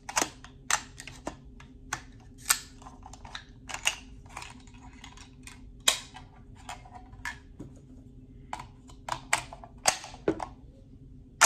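An AR-15-style rifle chambered in .350 Legend is being worked by hand: a run of sharp, irregular metallic clicks and clacks from the action, magazine and charging handle as a round that hung up on feeding is cleared. The hang-up is the rifle's ongoing failure to feed.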